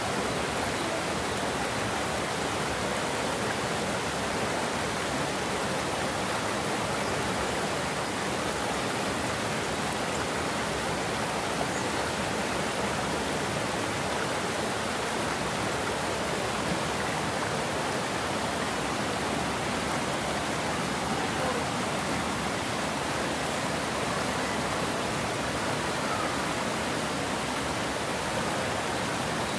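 Water pouring over a concrete weir into a foaming pool below: a steady, even rush of falling, churning water.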